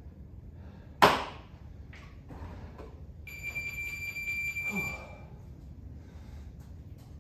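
A single sharp, loud knock about a second in, then a steady, high-pitched electronic beep lasting about a second and a half.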